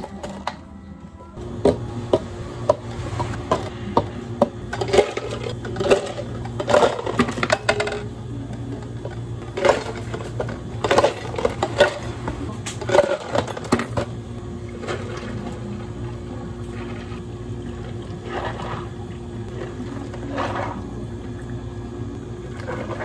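Ice cubes scooped from an ice bin with a metal scoop and tipped into plastic cups: a rapid run of clattering clinks and knocks over a steady hum of cafe equipment. After about 14 seconds the clatter thins to a few separate knocks.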